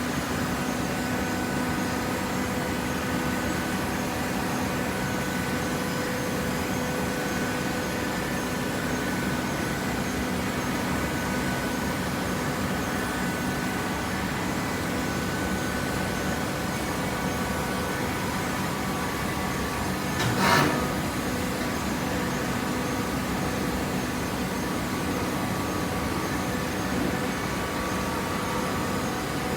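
Hydraulic carton baler's electric motor and pump running with a steady hum, with one short sharp noise about two-thirds of the way through.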